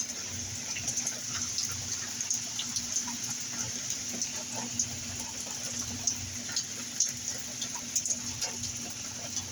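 Steady rain falling, with many scattered drips and splashes of drops.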